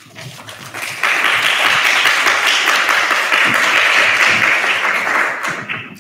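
Audience applauding: the clapping swells about a second in, holds steady, then dies away near the end.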